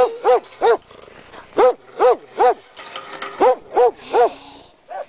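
A dog barking in three quick sets of three, nine short barks in all, each rising and falling in pitch and all of the same pitch.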